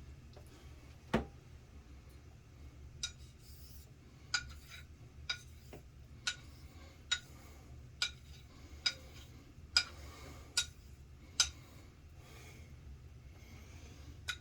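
Straight razor being honed on a Suehiro 10K Koseki finishing waterstone: a series of short, light clicks, about one a second, as the blade meets the stone on each stroke and flip.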